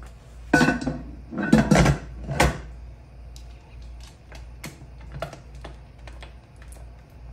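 Aluminium pressure canner lid clanking and scraping against the pot a few times with a metallic ring, then a run of light clicks as the lid's clamps are tightened down to seal the canner.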